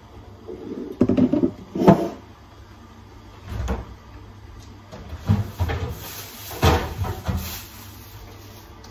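Kitchen doors and handling noises: a series of short knocks and thumps, about six in all, the loudest about one and two seconds in, as doors are opened and closed and things are moved about.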